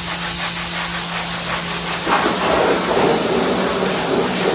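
Hand-held scrub brush scrubbing a wet, soapy concrete floor in quick back-and-forth strokes, over a steady hiss. About two seconds in, the scrubbing gets louder and rougher.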